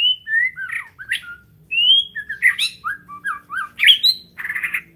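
White-rumped shama (murai batu) singing: a quick run of varied whistled notes sliding up and down, with a harsh rasping note near the end.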